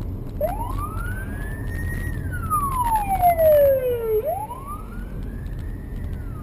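A siren in a slow wail, each rise and fall taking about four seconds, over the steady low rumble of a moving car.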